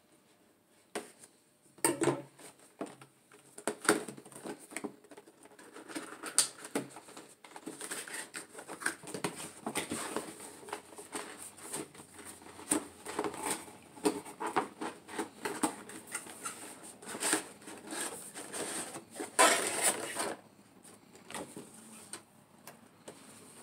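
Cardboard toy box and plastic blister packaging being handled and opened: a busy run of rustling, scraping and tapping. There are louder bursts about two and four seconds in and a longer one near the end, after which it goes quieter.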